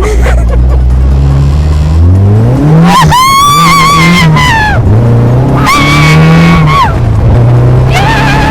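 Caterham Seven 620R's supercharged four-cylinder engine accelerating hard, rising in pitch over the first three seconds, then three long, high, wavering squeals of the tyres as the car is driven hard.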